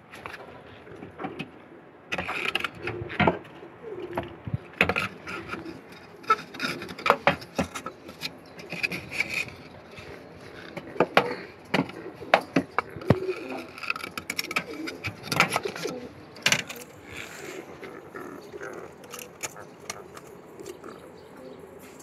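Domestic pigeons cooing, among many sharp clicks and knocks.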